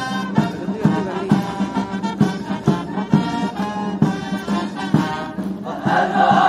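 Military band playing a march, brass over a steady drumbeat of about two beats a second. Near the end, a large group of voices comes in together, chanting.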